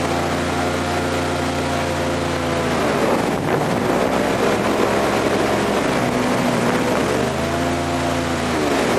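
Airboat engine and propeller running. The engine note holds steady, drops about three seconds in into a rushing noise, comes back up about seven seconds in and drops again near the end.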